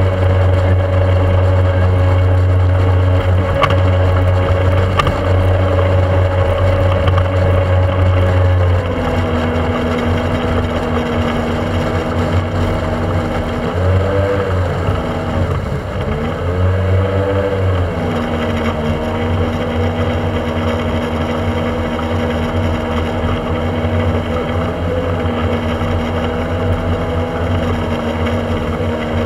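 Small speedboat's engine running at speed under a steady rush of wind and water. About nine seconds in the engine note drops, then swells up and falls back twice a few seconds later before settling steady.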